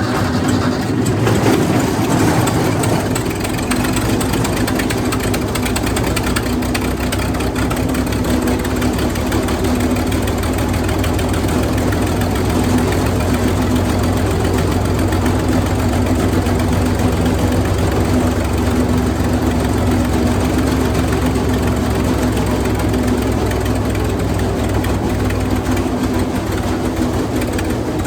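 Wood chipper's engine running steadily and loudly after being started, with a constant low hum and a dense mechanical clatter over it.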